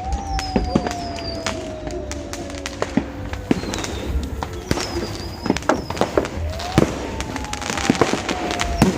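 Fireworks and firecrackers going off in a dense run of sharp cracks and pops. Twice, a tone rises briefly and then slides slowly down over a few seconds.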